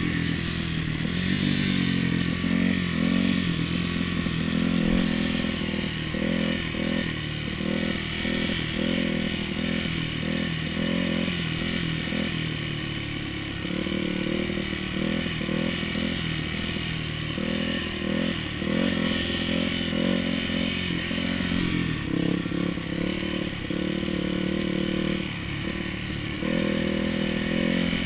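Yamaha YZ426F four-stroke single-cylinder dirt bike engine ridden hard. The revs climb and drop again and again as it is shifted and throttled along the track.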